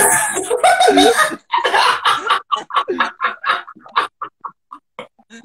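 Several people laughing hard: a loud cackling outburst at first, then a run of short laugh pulses, a few a second, that fade away.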